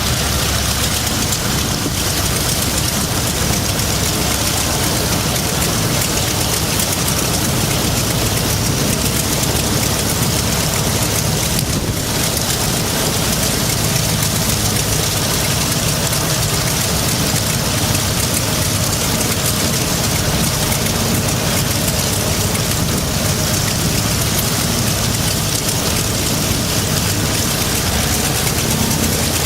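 Mitsubishi Zero fighter's 14-cylinder Nakajima Sakae radial engine running steadily, loud and unchanging.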